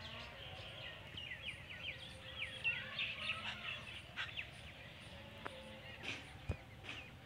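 Birds chirping and calling, with a quick run of short sweeping chirps in the first few seconds, then fainter scattered calls. A single sharp tap near the end.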